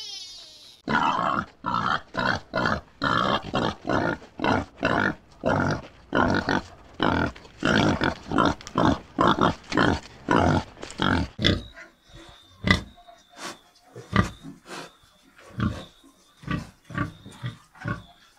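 Young pigs grunting and squealing in quick succession, about two to three loud calls a second. Over the last third the calls thin out and grow quieter.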